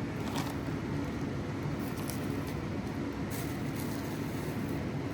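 Steady low rumble of background noise, with a few faint clicks and taps.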